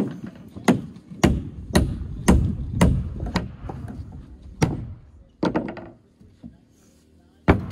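Hammer driving nails into wooden wall framing. There is a steady run of about seven blows, roughly two a second, then a few more spaced-out strikes after a short pause.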